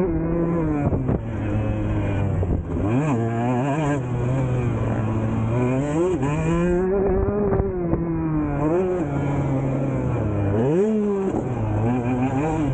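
2023 Husqvarna TC 125's two-stroke single-cylinder engine revving under riding, its pitch rising and falling repeatedly as the throttle is worked, with a quick sharp rev about two seconds before the end.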